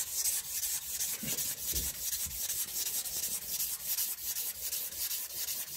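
P400 abrasive paper rubbed back and forth by hand over a linen micarta knife handle, in quick even strokes of about four a second: hand-sanding to take the scratches off the surface.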